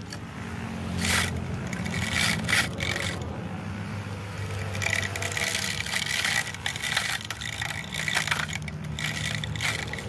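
Homemade trimmer's small 6-volt DC motor whirring steadily as its spinning razor blade cuts grass, with irregular scraping rasps each time the blade strikes stems and the ground.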